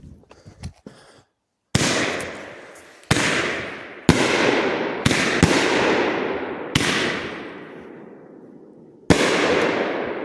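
A Pro Fireworks Neon Screamers 500g firework cake firing shot after shot: seven sudden reports, each trailing off in a fading hiss over a second or two, most of them about a second apart and the last after a longer gap.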